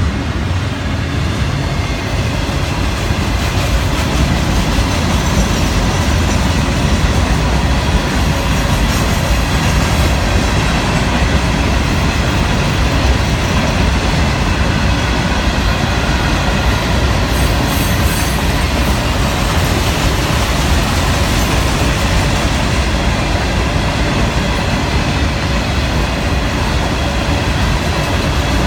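Freight train cars rolling past close by: a steady, loud rumble and clatter of steel wheels on the rails as double-stack container cars give way to rock hopper cars.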